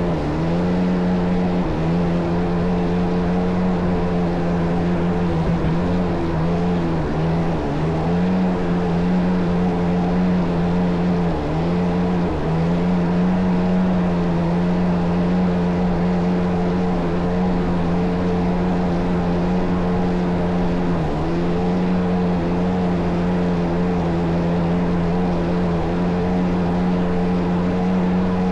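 Kawasaki JS550 stand-up jet ski's swapped-in 650 two-stroke twin engine running at steady high revs, with brief dips in pitch a few times, over a steady rushing hiss.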